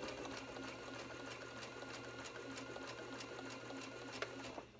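Sewing machine running steadily as it top-stitches fabric, the needle ticking evenly over a low motor hum; it stops near the end.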